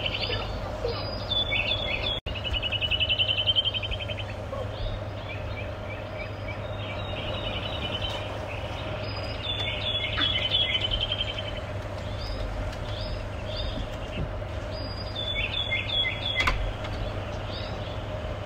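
Small songbirds singing in trees, with several fast trills and short chirping notes, over a faint steady hum.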